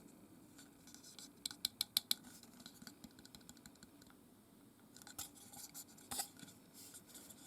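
Light clicks and taps of hard plastic figure parts being handled: a quick run of about five clicks near the start, then a few scattered taps later.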